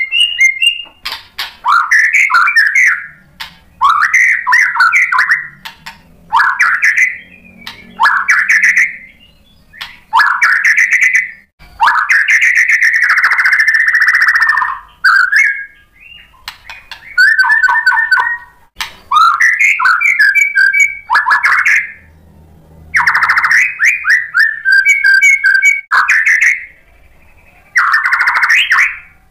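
White-rumped shama singing: a run of loud, clear whistled phrases, each about a second long with short pauses between, and one longer phrase about twelve seconds in.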